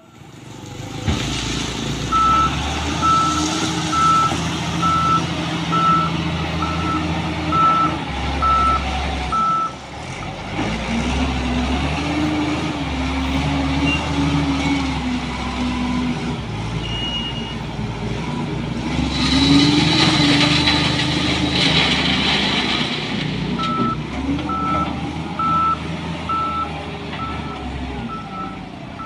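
Diesel wheel loader working among ballast stone, its engine revving up and down as it moves. Its reverse alarm beeps about once a second for several seconds early on and again near the end. About two-thirds of the way through, a louder harsh rushing noise rises over the engine.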